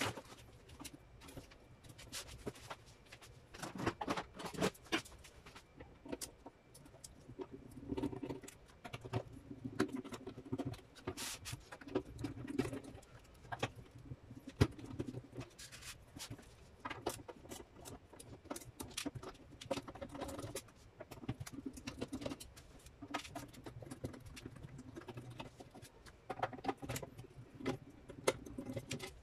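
Hand screwdriver backing small screws out of a sheet-metal inverter cover, with many irregular clicks, taps and light rattles of the tool, the loose screws and the metal case being handled.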